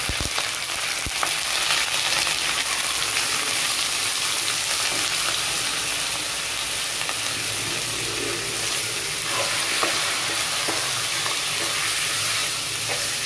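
Pieces of beef sizzling in hot oil with fried onions as they are seared, stirred with a silicone spatula: a steady frying hiss with a couple of sharp knocks about a second in.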